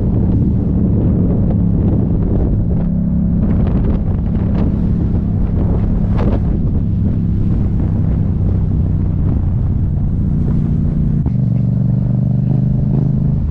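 Yamaha MT-07's parallel-twin engine running at fairly steady revs, its pitch stepping down a couple of times, with wind noise on the microphone.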